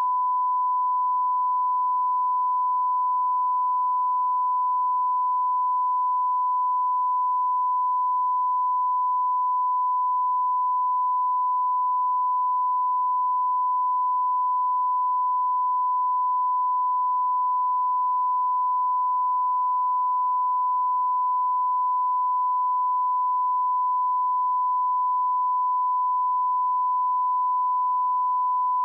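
1 kHz sine-wave test tone at −20 dBFS, a steady unbroken pure tone for calibrating audio equipment.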